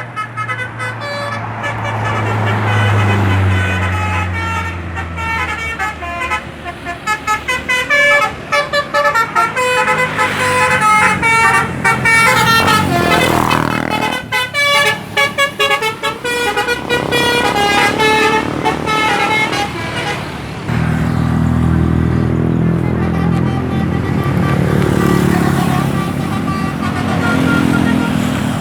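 Bus 'telolet basuri' musical horns playing quick many-note tunes over a running bus engine. The horn tunes are densest through the middle, and the engine's low drone comes to the fore at the start and again near the end.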